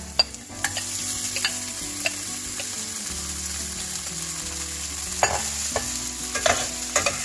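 Soaked sabudana mixture sizzling as it hits hot ghee and fried potatoes in a stainless steel pan, the hiss growing louder about half a second in. A metal spatula stirs and scrapes through it, with several sharp clicks against the pan near the end.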